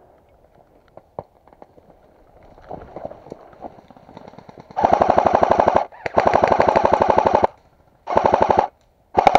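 Airsoft gun firing four rapid full-auto bursts in the second half, the longest just over a second, with faint scattered pops of other airsoft guns before them.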